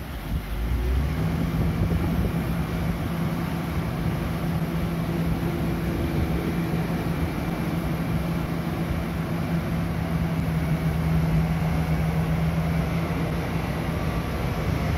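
Diesel engine of a Volvo EW145B wheeled excavator running steadily under hydraulic load while it digs in a drain. The engine note drops for about a second at the start, then holds steady.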